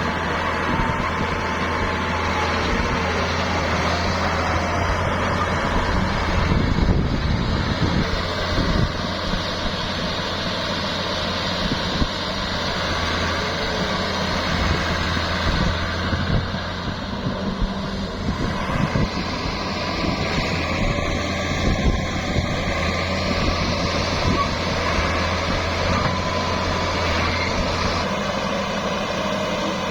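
Diesel engines of a mini excavator and a dump truck running steadily, with irregular knocks, most of them between about 6 and 9 seconds in.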